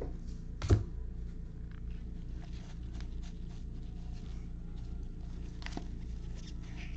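Stack of baseball cards handled with gloved hands: soft rustling and light clicks of card edges sliding against each other, with one sharp knock about a second in, over a steady low hum.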